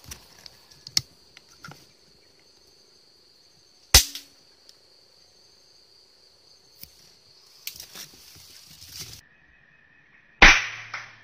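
Two air rifle shots: a sharp crack about four seconds in, and a louder one with a short ringing tail near the end. A steady high-pitched insect drone runs underneath and drops to a lower pitch shortly before the second shot.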